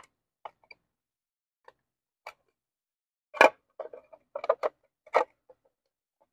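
Handling noise from an e-bike motor controller and its wiring: scattered light clicks, a sharp knock about three and a half seconds in, then a quick run of clicks and taps as the cables and XT90 connectors are worked out of the controller compartment.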